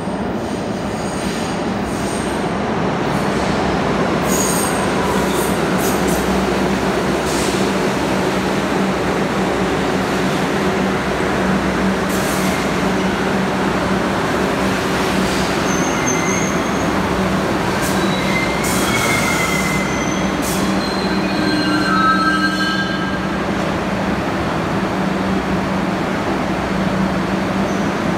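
R62A subway train on the 6 local running through an underground station over a steady hum and rumble. Its wheels squeal in thin high tones for several seconds about two-thirds of the way through.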